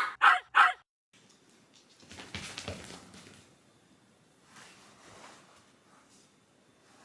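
A quick run of short dog barks right at the start, then faint rustling and scuffing as a wire fox terrier rubs its body along a fabric sofa and the carpet.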